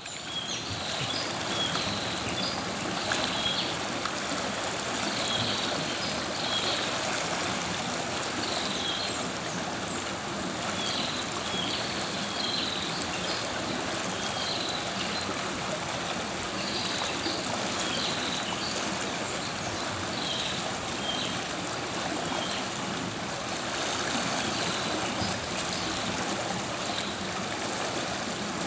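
River water flowing steadily over rocks, with short high chirps scattered through.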